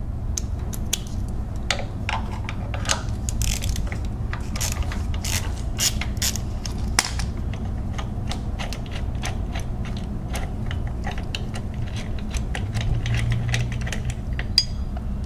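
Hand ratchet clicking in quick irregular runs as a bolt of the AC compressor bracket is wound out, over a steady low hum.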